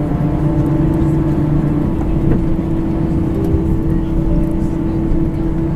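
Cabin noise of an Airbus A320 taxiing after landing: a steady hum from the idling jet engines, with one held tone over a low rumble.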